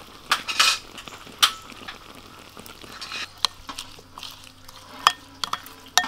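A metal spoon clinking and scraping against a glass bowl as a sauce of sliced shallots, garlic and chilies is stirred. The sharp clinks come at irregular intervals, about one a second.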